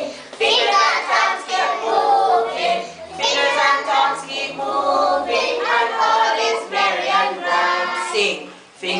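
A class of young children singing a song together, in lively sung phrases with short breaks between them.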